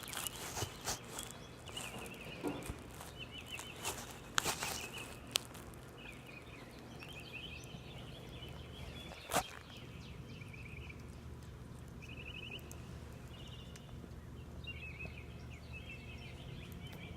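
A bird chirping in short high calls and quick trills, with scattered sharp clicks and taps, mostly in the first half.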